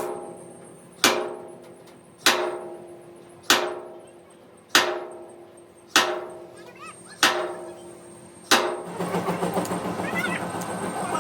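Hammer blows on steel, seven evenly spaced strikes about a second and a quarter apart, each ringing briefly and dying away. About nine seconds in, a busier clatter of workshop noise takes over.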